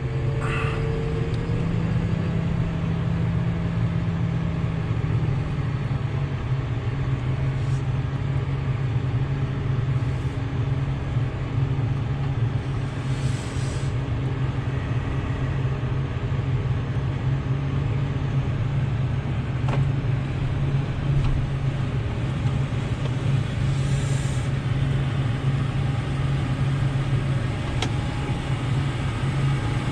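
Semi truck's engine running steadily, with a slight rise in pitch in the first few seconds as it pulls ahead, then holding an even hum.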